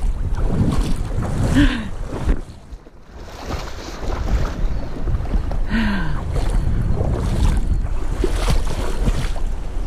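Shallow water splashing and sloshing as a hooked brown trout thrashes at the angler's feet and is reached for by hand, with wind buffeting the microphone.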